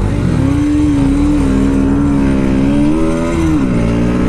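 Motorcycle engine running under way, its pitch holding steady, then dipping briefly about three and a half seconds in and rising again.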